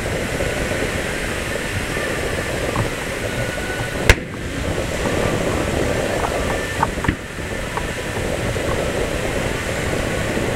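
Aerial fireworks shells bursting: one sharp, loud bang about four seconds in, then a smaller bang with a few clicks about three seconds later, over steady background noise.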